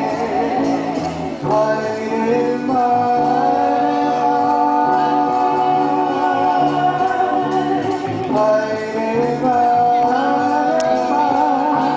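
A song with group singing in long held notes over a steady low beat.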